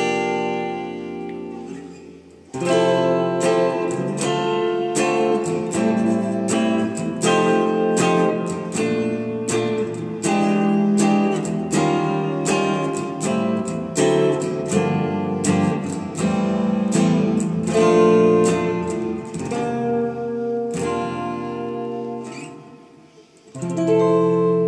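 Solo SG-style solid-body electric guitar played without accompaniment, chords and melody notes struck and left to ring. The sound fades away about two seconds in and again near the end before the next chord comes in.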